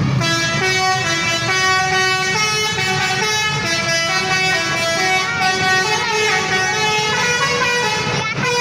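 Basuri musical bus horn playing a tune: a run of held, many-toned horn notes that step from pitch to pitch every half second or so.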